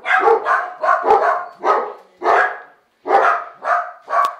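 A dog barking repeatedly, about ten sharp barks at roughly two a second with one short pause, as it begs for a treat held up in front of it.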